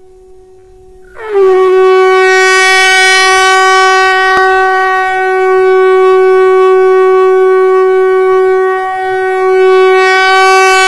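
Conch shell (shankh) blown in one long, steady note. It sounds softly for about the first second, then swells to a loud blast, the pitch settling slightly as it comes in, and holds.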